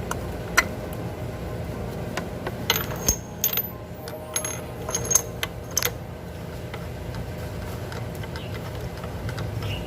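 Metal-on-metal clinks and clicks of a spark plug socket wrench being worked to loosen and remove a motorcycle's spark plug. The sharp clinks come in a few clusters over the first six seconds, over a steady low hum.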